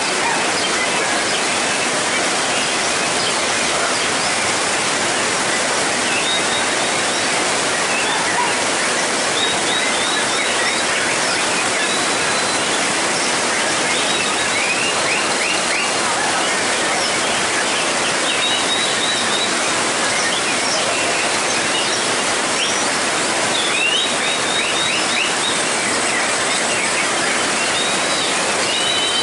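Heavy rain pouring on a roof, a loud steady rush throughout, with a white-rumped shama singing through it in short runs of quick repeated notes, several times.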